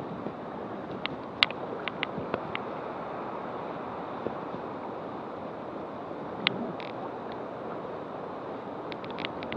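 River water running through a shallow riffle: a steady rush, with a few short sharp ticks scattered through it.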